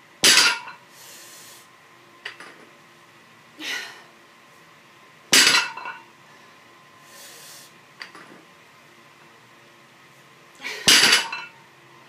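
Loaded barbell with Pendlay bumper plates set down on the floor after each deadlift rep, three times about five and a half seconds apart: the plates thud and the steel bar and collars clank with a short ring. Quieter clinks and hard breaths come between the reps.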